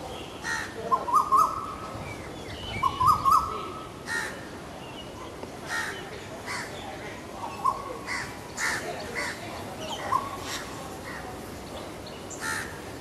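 Male Asian koel singing its rising koo-Ooo call, repeated several times. The loudest phrases come in the first four seconds and fainter ones follow, with short high chirps in between.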